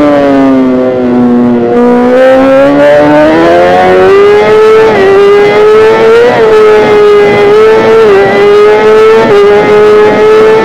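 Kawasaki ZX-10R's inline-four engine under load. The revs fall over the first two seconds, then climb and hold high, with brief dips in pitch every second or so.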